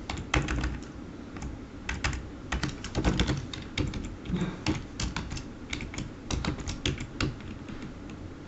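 Typing on a computer keyboard: irregular runs of keystrokes with short pauses, thinning out near the end.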